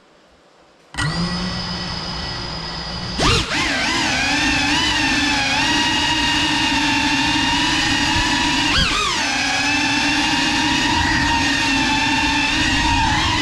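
GEPRC Cinelog 35 cinewhoop's brushless motors and ducted propellers whining in flight, starting abruptly about a second in. Its pitch wavers with throttle, with a sharp surge about three seconds in and a quick rise and fall near nine seconds.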